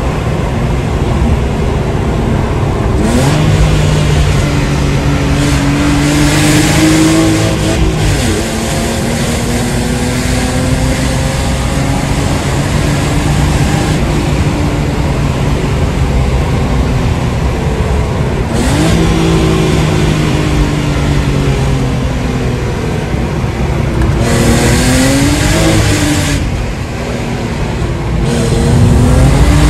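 BMW E36 320i's 2.0-litre straight-six with a loud exhaust, heard from inside the cabin while driving. The revs climb under throttle and fall back several times, with a rush of noise during the harder pulls.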